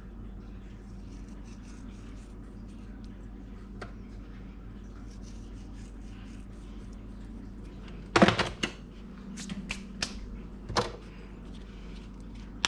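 Steady low hum with a few sharp knocks and clatters of things being handled, a quick cluster of them about eight seconds in and a couple more shortly after.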